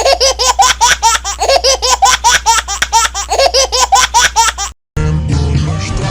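A child's laughter sound effect: a rapid, unbroken string of high 'ha-ha' bursts that cuts off abruptly after about four and a half seconds, followed by music.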